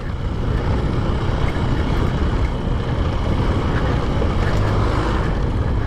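Yamaha FZ motorcycle riding over a rough gravel road: a steady mix of engine and tyre noise with a low rumble of wind buffeting the microphone.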